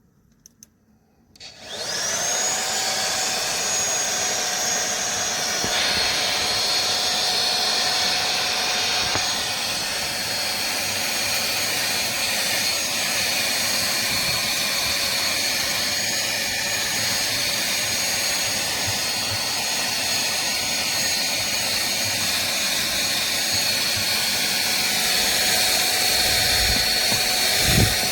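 Cordless stick vacuum cleaner switched on: its motor spins up with a quickly rising whine about a second and a half in, then runs steadily with a high whine. A second, lower whistle joins about six seconds in, and a few low thumps come near the end.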